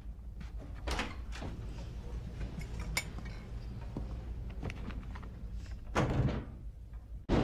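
A door shutting, the loudest sound about six seconds in, after a few soft knocks and footfalls, all over a low steady room hum.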